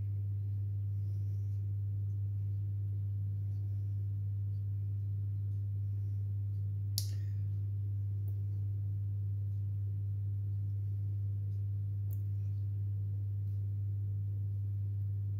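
A steady low hum, with a sharp click about seven seconds in and a couple of faint ticks as raw potato slices are laid on paper towel.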